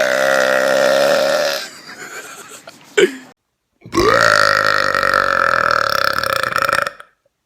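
Two long, loud human burps, each held at a steady pitch: the first lasts about a second and a half, and after a brief sharp sound and a short break the second runs for about three seconds.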